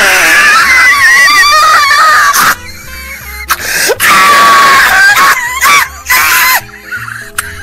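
A man screaming loudly in wavering bursts. The first lasts about two and a half seconds, and more follow after a short break, over background music.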